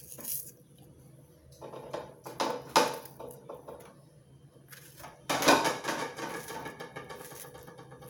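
Kitchen knife cutting and handling fruit over a plastic tub: a few short knocks, then a louder clatter about five seconds in that fades over a couple of seconds.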